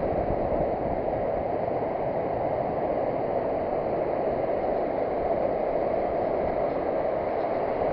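Surf washing steadily on a sandy beach, a constant rushing hiss with low rumble and no distinct breaks.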